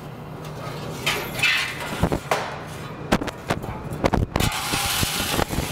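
Metal ash shovel scraping across the stone hearth floor of a wood-fired oven and knocking against it several times, as ash and embers left from the night before are cleared out. There is a steady low hum underneath.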